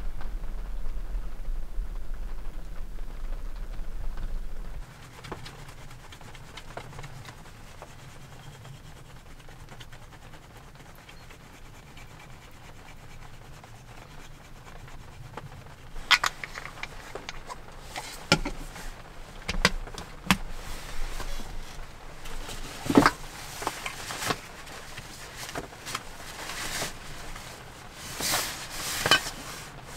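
Steady low rumble of rain on the camper shell for about five seconds, cutting off suddenly. After a quiet stretch come scattered rustles of a fabric pouch being handled and small knocks of things set down inside the camper.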